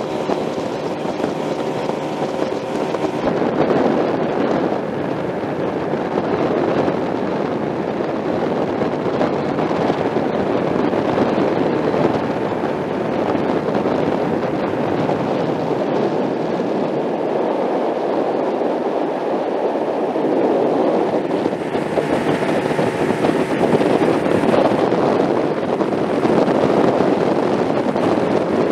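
Steady rushing noise of a vehicle under way, with wind on the microphone, swelling and easing slightly.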